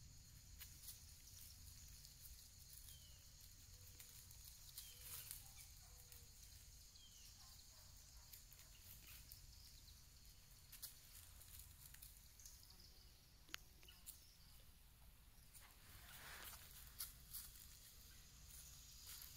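A goat crunching acorns as it chews: faint scattered crunches and clicks over near silence, a few slightly louder near the end.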